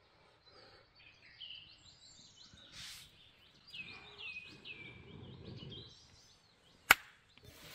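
Woodland birds chirping, a run of short notes that each slide downward. Soft breathy puffs as a smouldering tinder bundle is blown into flame, and one sharp knock near the end.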